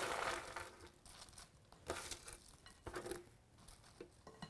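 Hard toasted bread cubes sliding off a metal baking sheet and tumbling into a bowl, loudest at the start, then a few shorter rattles and scrapes as the last pieces and crumbs are pushed off by hand.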